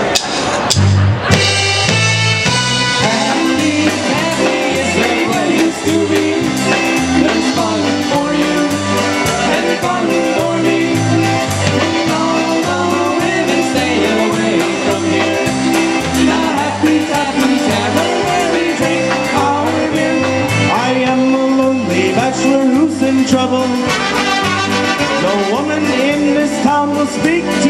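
Live polka band playing an instrumental introduction: trumpet and trombone carry the tune over concertina, drums and a bass line alternating between two low notes in a steady oom-pah beat.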